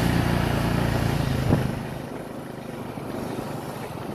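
Motorbike engine running with road and wind noise. About one and a half seconds in there is a single knock, and after it the engine note drops away, leaving a quieter rush of road and wind.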